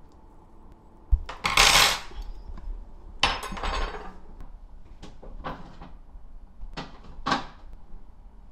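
A metal spoon scraping and clinking against dishes: a soft thump, then two longer scrapes in the first half, then four short clinks.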